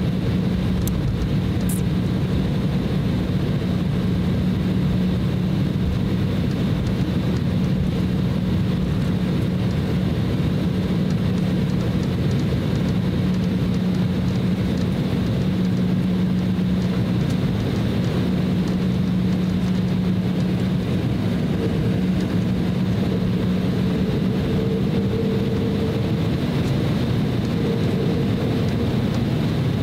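Cabin noise inside an Embraer E190 regional jet as it taxis: its two GE CF34 turbofans run at taxi power with a steady drone and a faint high whine over a continuous rumble. A second, higher hum comes and goes near the end.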